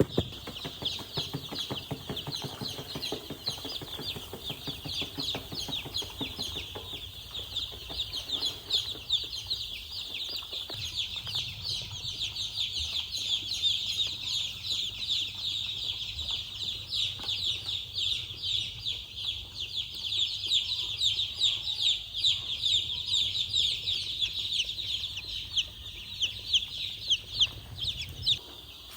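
A brood of baby chicks peeping continuously, with many short, high peeps overlapping; it cuts off just before the end.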